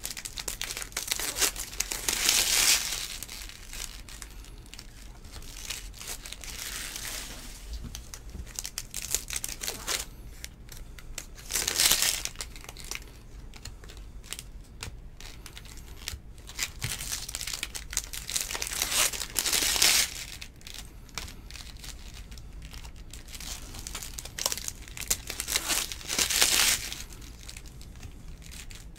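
Trading-card pack wrappers being torn open and crinkled in repeated bursts every few seconds, with cards being handled between them.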